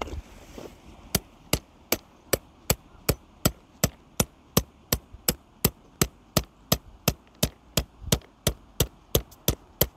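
Hammer driving a tent peg with steady, sharp blows, about two and a half a second, quickening near the end.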